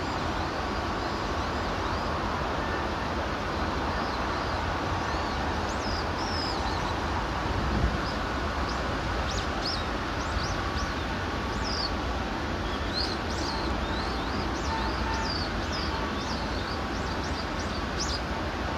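Small birds chirping in quick, repeated short calls over a steady rushing outdoor noise, with a single brief thump a few seconds in.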